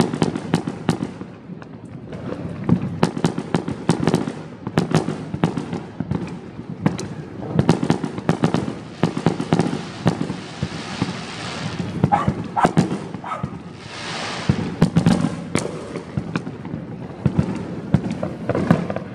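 Fireworks going off in a dense, continuous barrage of sharp bangs and pops, with two stretches of hissing about ten and fourteen seconds in.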